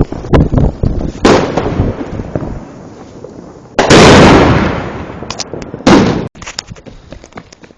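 Fireworks and firecrackers going off: a string of sharp bangs, a longer, very loud blast about four seconds in and another bang about two seconds later, then only small faint crackles.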